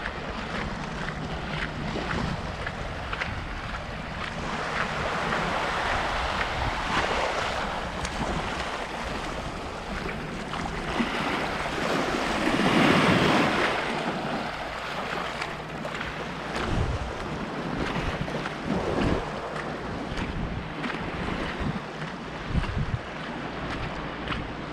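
Sea waves washing onto the shore, swelling twice and falling back, with wind buffeting the microphone.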